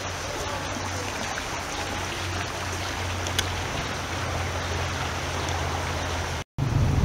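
Water flowing steadily in a stream, a continuous rushing. It cuts out for a moment near the end and comes back louder.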